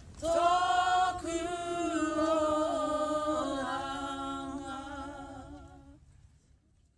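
Group of young people singing a Māori waiata unaccompanied: a closing phrase of held notes with vibrato, fading out near the end.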